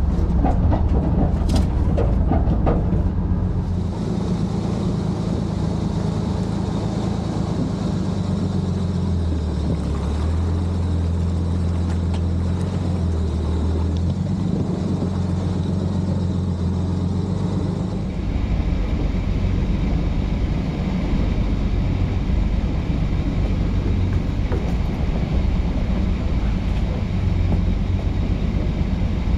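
Dodge M37 military truck's flathead inline-six engine running at low revs as the truck crawls a trail in four-wheel-drive low, second gear: a steady low drone whose tone shifts about four seconds in and again around eighteen seconds.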